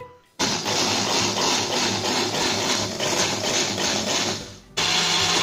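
Small bullet-style personal blender's motor running, whipping a thick cottage cheese, sour cream and cocoa mixture. It starts about half a second in, stops briefly near the end and starts again.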